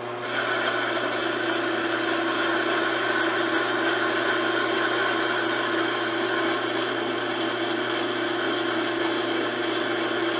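Homemade milling machine running steadily, its motor giving a constant whine with an even mechanical hum beneath. The sound starts and stops abruptly.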